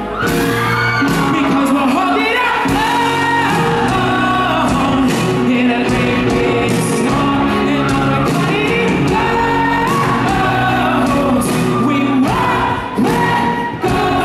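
Live pop-rock band playing loud, with a male lead singer singing into a microphone over electric guitar, drums and keyboards, heard in a large concert hall.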